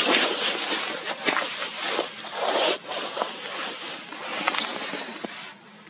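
Camera handling noise as the camera is readjusted: irregular rustling and rubbing right at the built-in microphone, with many small clicks and knocks. It dies down shortly before the end.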